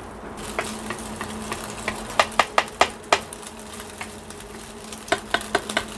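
Wooden spatula scraping and knocking against a nonstick frying pan while stirring egg frying in oil, which gives a light sizzle. The sharp clicks come in quick runs about two seconds in and again near the end, over a steady low hum.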